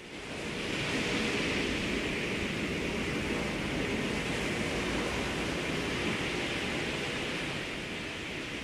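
Recorded sea surf, a steady rushing hiss of waves, fading in over about the first second with no music yet.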